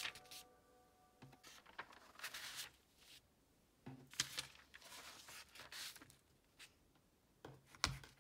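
Paper pages of a Staples Arc disc-bound notebook being turned by hand: short, faint rustles and flaps at irregular intervals, with a sharper click near the end. Background music fades out in the first half-second.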